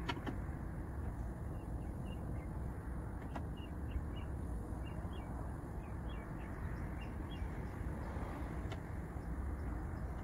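Steady low wind rumble on the microphone, with faint short bird chirps scattered through it and a few light clicks.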